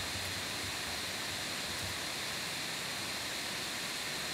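Steady hiss of background noise, recording room tone, with a faint steady high whine over it.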